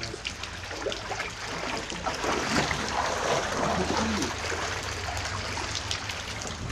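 Floodwater from heavy rain rushing and splashing down a street with no storm drains, a steady noisy flow that grows a little louder about two seconds in.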